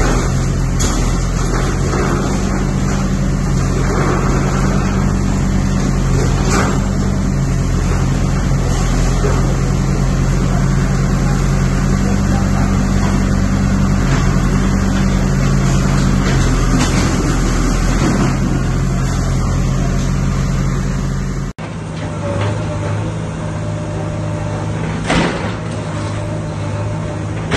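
Backhoe loader's diesel engine running steadily while it knocks down sheet-metal stalls, with a few clanks of metal and debris. About three-quarters of the way through the sound cuts abruptly to a similar engine, and a sharp bang follows a few seconds later.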